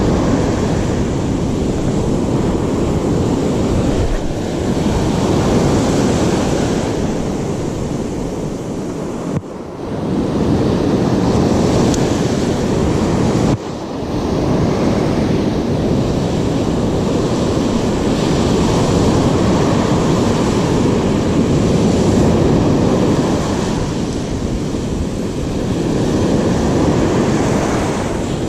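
Ocean surf breaking and washing up the beach, mixed with wind on the microphone; a steady loud rush that dips briefly twice, about nine and a half and thirteen and a half seconds in.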